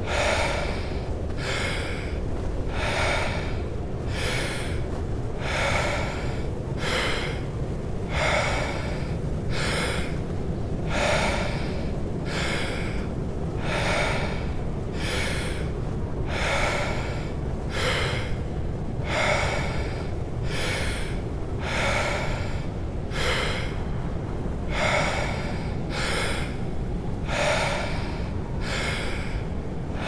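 Deep, forceful Wim Hof power breathing: a full inhale then exhale about every two seconds, keeping an even rhythm. Under it runs a steady low rush of snowstorm wind ambience.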